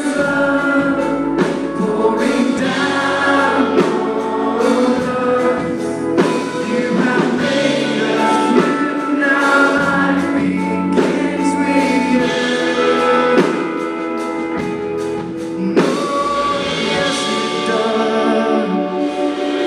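Live worship band playing a contemporary Christian song, with guitar and a steady drum beat, while the singers and the crowd sing the chorus together. The level dips briefly for about a second just before three-quarters of the way through, then the band comes back in full.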